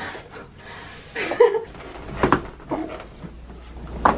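Chiropractic adjustment: two short sharp pops about two seconds apart, with brief soft vocal sounds from the patient around them.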